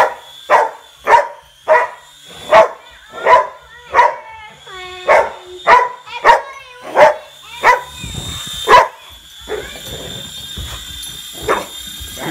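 Dog barking over and over, about a bark every two-thirds of a second, with a drawn-out whine partway through and a short lull near the end. A steady high whine from the small remote-control toy helicopter's motor runs underneath.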